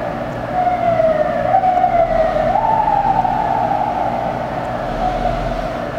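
Emergency-vehicle siren wailing, its pitch climbing about two and a half seconds in and then falling slowly, over a steady low hum.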